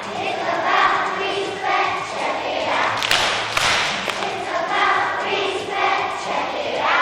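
A large group of children singing together in a big, echoing hall, with a brief noisy thump about three seconds in.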